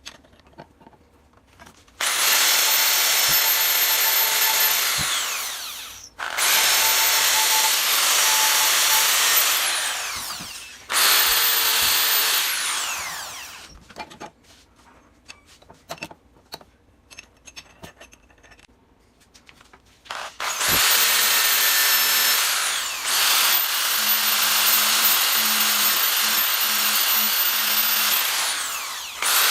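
Electric power tool run in four bursts of a few seconds each, the longest about eight seconds near the end. Each burst starts with the motor's high whine spinning up and ends with it winding down, with a few quiet clicks and handling sounds in the gaps.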